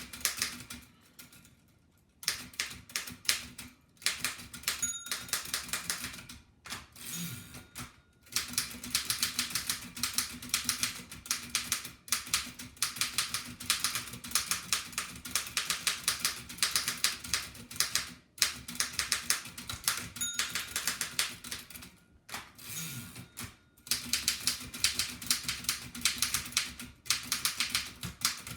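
1894 Densmore No. 1 typewriter being typed on fast: rapid runs of sharp keystroke clacks broken by short pauses. Twice a short bell ring sounds, the margin bell, and a couple of seconds later comes a brief sliding sound from the carriage.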